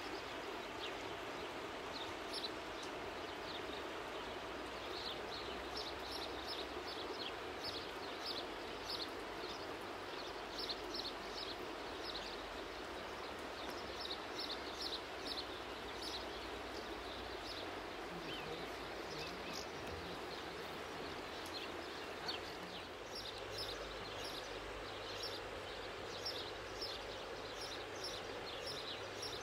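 The Doubs river running steadily over shallow stony riffles, a constant rushing of water. High short chirps repeat over it, one or two a second.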